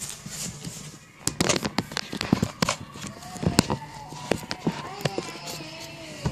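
Close-up handling noise: a quick run of sharp clicks and knocks over about two seconds, as small hard objects and the phone are handled and set down. A faint voice follows in the background.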